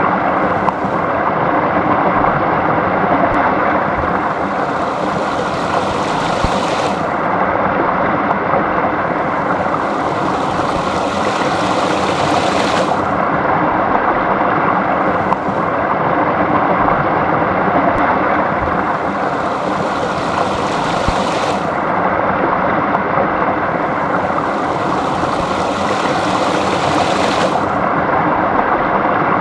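Small stream flowing steadily: a continuous rush and babble of running water.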